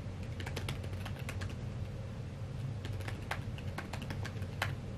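Aggressive typing on a computer keyboard: quick, irregular runs of key clicks with a short pause near the middle. A low steady hum lies underneath.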